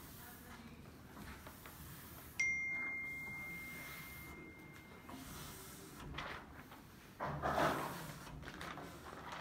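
A single ding: one high, pure tone that starts suddenly a little over two seconds in and rings on, fading away over about three and a half seconds. Near the end comes a short, louder scuffing, a plastic squeegee being worked over window film on glass.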